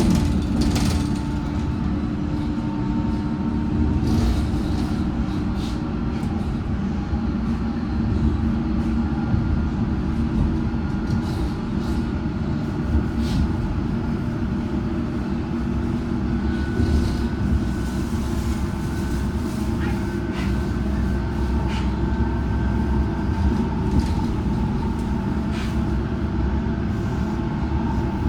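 Interior of a Metropolitan line S8 stock train running between stations: a steady low rumble of wheels on track, with a faint whine from the traction equipment that drifts slightly in pitch. Occasional sharp clicks and knocks come from the rails.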